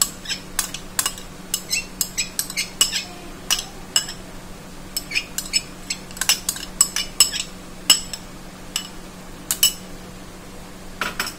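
Scattered light clicks and taps of a white bowl knocking against the rim of a glass mixing bowl as whipped cream is tipped out of it, over a faint steady hum.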